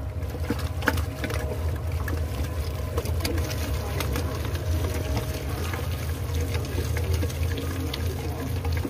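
Wet fish paste being mixed and slapped by hand in a bowl: irregular soft wet smacks and clicks. A steady low hum runs underneath.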